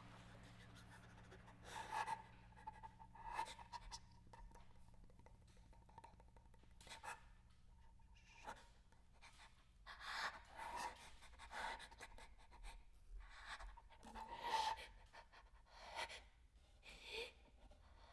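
Faint, short breathy sounds from a performer at irregular intervals, about a dozen of them, some with a faint voiced edge.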